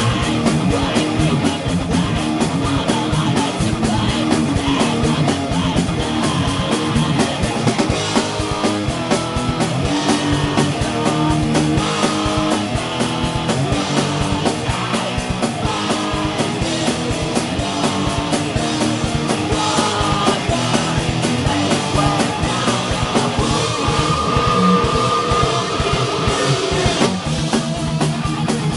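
A rock band playing live in a small room: electric guitar and drum kit with cymbals, the music dense and continuous.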